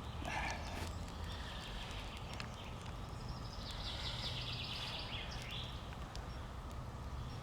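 Small campfire of damp wood burning, with scattered sharp crackles and snaps. A brief high, raspy hiss comes in about three and a half seconds in and stops about two seconds later.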